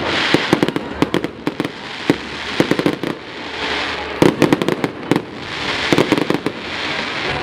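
Fireworks display: an irregular string of sharp bangs and pops from bursting shells, some in quick clusters, with swells of crackling hiss between them.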